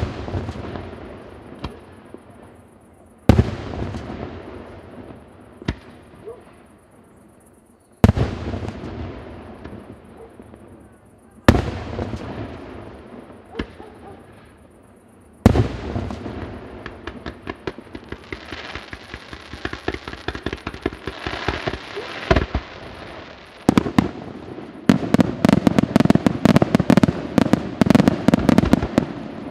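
Aerial firework shells bursting one at a time every few seconds, each a sharp bang that echoes away. About halfway through, crackling sets in and builds into a dense, rapid barrage of cracks near the end.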